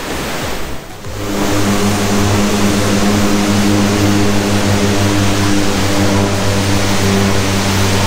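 Car driving at a steady speed: the engine hums at one constant pitch over road and wind noise.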